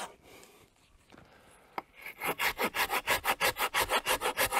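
Cheap hand saw cutting a standing dead, dry tree trunk. After a short pause with a single click, quick rasping strokes start about two seconds in, roughly five a second.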